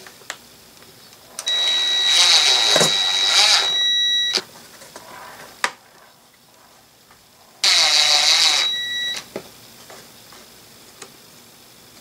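Ridgid cordless drill/driver running in two runs, about three seconds and then about a second and a half, each with a steady high motor whine, as it drives screws on the panel. Small clicks and taps from parts being handled come between the runs.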